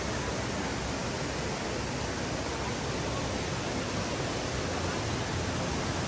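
Steady rush of water from a waterfall cascading over boulders and the shallow rocky stream below it, an even, unbroken hiss.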